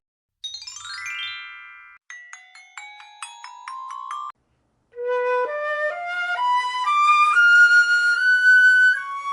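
Bright, ringing mallet-percussion notes, of the glockenspiel kind: a quick sweeping run, then a few scattered notes. After a short gap a flute plays a melody of held notes climbing step by step.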